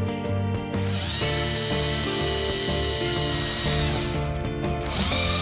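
Cordless drill whirring up to speed and running steadily as its bit widens the hole in a plastic syringe nozzle. It stops near four seconds in and starts up again about a second later. Background music plays underneath.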